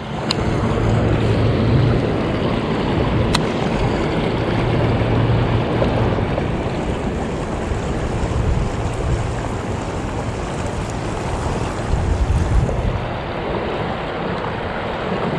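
Fast river current rushing past a shallow, rippled bank, with wind buffeting the microphone.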